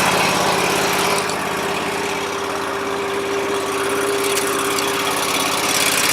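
John Deere tractor engine idling just after a cold start, warming up. It runs steadily and settles slightly quieter about a second in.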